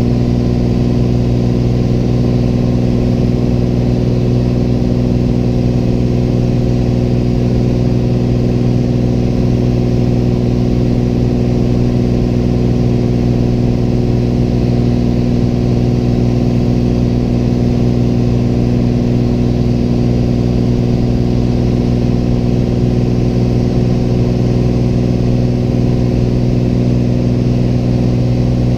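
A single-engine Piper light aircraft's engine and propeller droning steadily in cruise, heard inside the cockpit. The pitch holds unchanged throughout.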